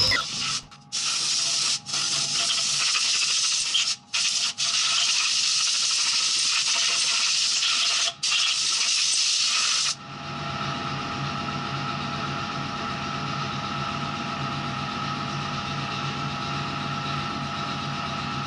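Compressed-air blow gun blasting aluminium chips off machined parts in a CNC mill enclosure: a loud hiss in long blasts, broken by a few short releases of the trigger. About ten seconds in it gives way to a quieter steady hiss with a faint hum.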